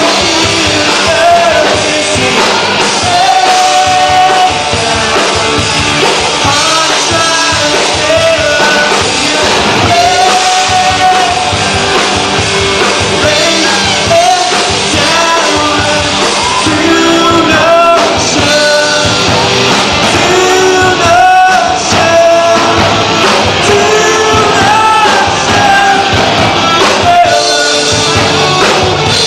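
Rock-style song with a voice singing the melody over a full band.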